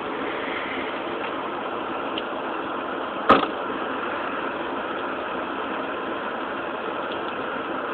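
Steady hurricane wind and rain noise, with one sharp knock about three seconds in.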